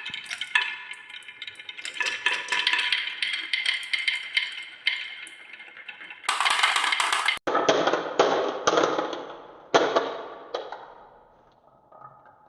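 Marbles rolling and clattering through a wooden marble run. For the first few seconds there is a ringing clatter with steady tones. After that come several rolling runs, each starting suddenly and fading away, and the sound dies down near the end.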